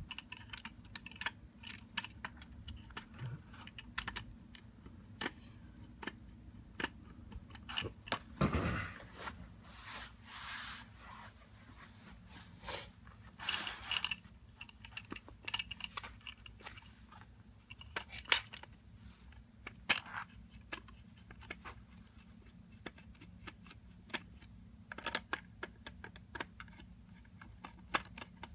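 Scattered small clicks, taps and scrapes of a screwdriver working the screws and the plastic shell of a 9 mm 50-round Glock drum magazine being handled during disassembly, with a few longer scraping rustles near the middle.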